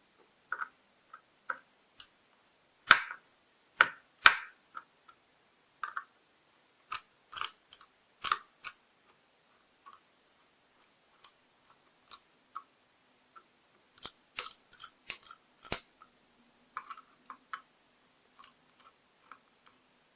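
Irregular sharp plastic clicks and taps from handling a Lenovo ThinkPad T420 laptop's parts, some single and some in quick clusters; the loudest two come about three and four seconds in.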